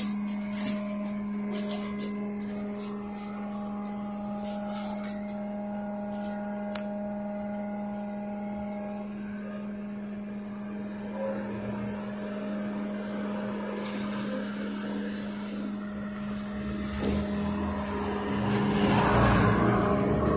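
Interior of a LiAZ-5280 trolleybus with a DK-213 traction motor and rheostat-contactor control, standing with a steady low electric hum and a few sharp clicks. About three seconds before the end it starts pulling away, and the running noise grows louder.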